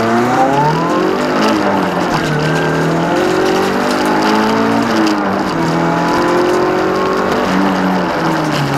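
Toyota Starlet EP82 race car's four-cylinder engine under hard acceleration, heard from inside the cabin, its pitch climbing and dropping back several times.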